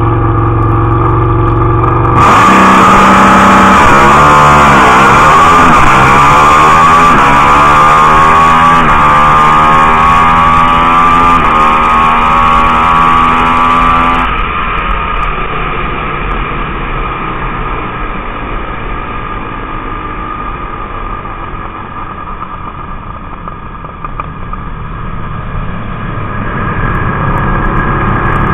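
Drag-racing motorcycle engine held at a steady note on the start line, then launching at full throttle about two seconds in and revving up through the gears in a roughly ten-second quarter-mile pass. About 14 seconds in the throttle snaps shut and the engine drops to a quieter, rough run as the bike coasts down, picking up again near the end.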